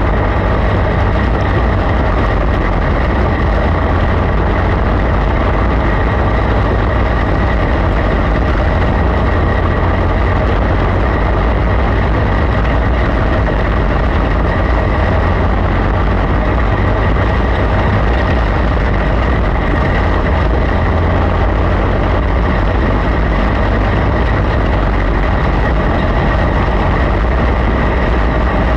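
Winged dirt-track race car's engine running at a steady pitch, recorded onboard while the car laps the dirt oval, over a strong low rumble.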